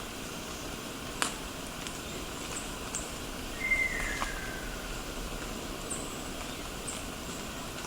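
Ruddy kingfisher giving one long descending call about halfway through. A sharp click comes about a second in, and there are a few faint, short, high chirps.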